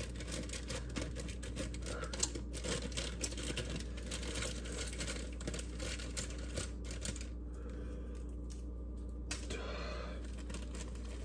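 Plastic cake-mix bag crinkling and tearing as it is handled and opened: a dense run of small crackles and rustles that thins out about seven seconds in.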